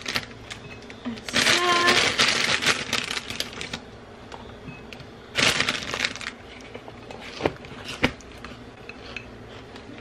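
Plastic produce bag of greens crinkling and rustling as it is handled, in two bursts about a second in and about five seconds in, followed by a few light clicks of glass and plastic containers on the counter.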